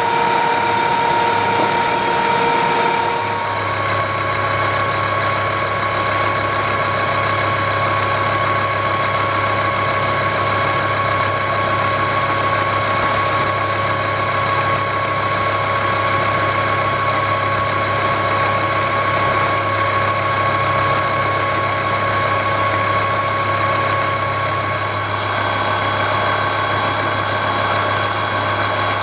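Vertical milling machine running a fine-pitch roughing end mill through metal, a steady machining drone with a low hum. Its tone shifts about three seconds in and again near the end.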